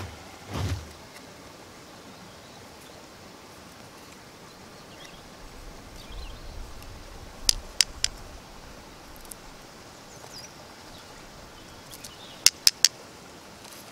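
Two quick sets of three sharp wooden clicks, about five seconds apart, as carved wooden tong pieces are handled and knocked together, over a steady outdoor hiss with a few faint bird chirps.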